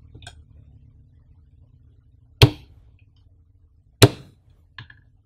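Hard plastic clicks as a laptop charger's plug is pushed into the flip-lidded AC socket of a power bank. Two sharp, loud clacks come about a second and a half apart, with faint ticks of handling before and after.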